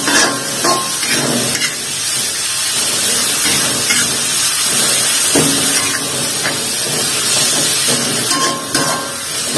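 Dried Medan anchovies frying in a wok, a steady sizzling hiss, while a metal spatula stirs them with repeated scrapes and knocks against the pan. They are being fried until dry.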